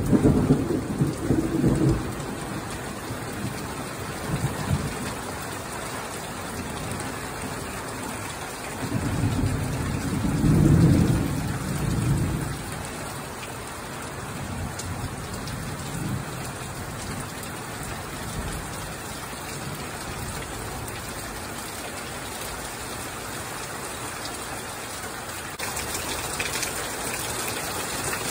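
Thunderstorm: steady rain with thunder rumbling. One loud rumble comes at the start and another, longer one about ten seconds in, with fainter rumbles between. The rain grows a little louder near the end.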